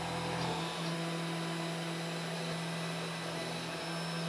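Small CNC engraver's spindle running steadily with a 15-degree V-bit near the end of the V-carve clean-out pass, a constant hum with one low steady tone.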